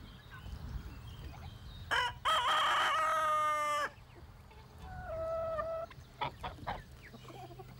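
Rooster crowing: one long crow beginning about two seconds in, then a fainter, shorter call around five seconds in.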